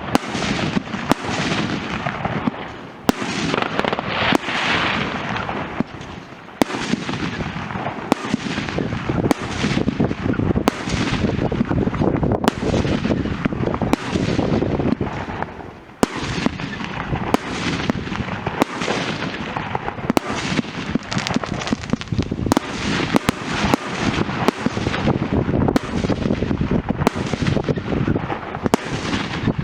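Fireworks going off without a break: many sharp bangs, several a second, over a dense crackle, easing briefly a few times.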